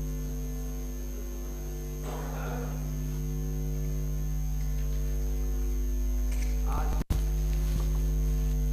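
Steady electrical mains hum on the microphone feed, a low buzz with a stack of overtones, under faint indistinct room noise. The sound cuts out for an instant about seven seconds in.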